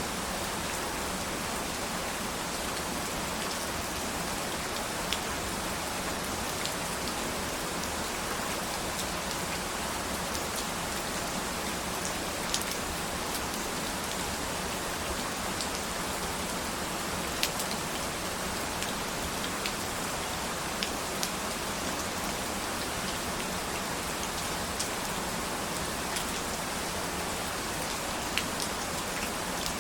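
Steady rainfall, an even hiss of rain with scattered sharper drops ticking on a surface.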